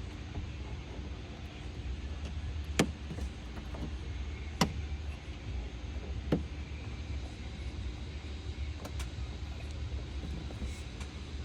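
Sharp clicks, three of them about two seconds apart and a couple of fainter ones later, as a billet door handle's lock cap cover is pressed onto the handle, its wide, tight tabs pushing into place. A steady low hum runs underneath.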